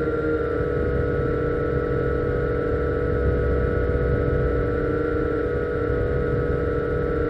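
Syma X8G quadcopter's motors and propellers hovering, heard through the camera mounted on it: a steady whine of several held tones over a rough rushing noise.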